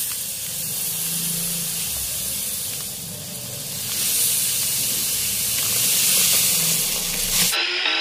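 Black sesame seeds pouring into a stainless steel bowl, a steady hiss. It cuts off suddenly near the end, and music comes in.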